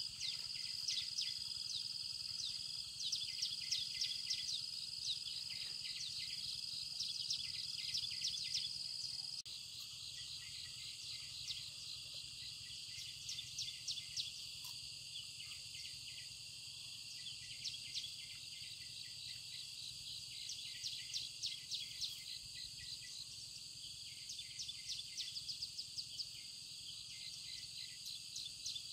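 Insects trilling in a steady high-pitched chorus, with quick runs of rapid chirps over it. The chorus becomes a little quieter about nine and a half seconds in.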